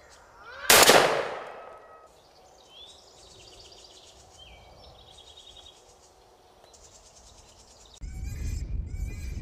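A single rifle shot about a second in, sharp and loud, its ringing dying away over about a second. Faint high chirping follows, and near the end a steady low rumble sets in.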